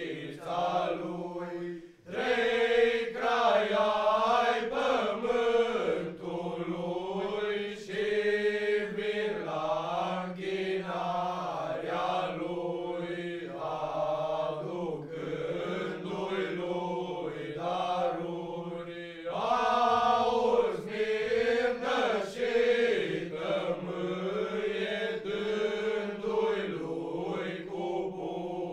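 A group of young male carolers singing a Romanian colindă (Christmas carol) unaccompanied, a low note held steadily beneath the moving melody. There is a brief pause for breath about two seconds in.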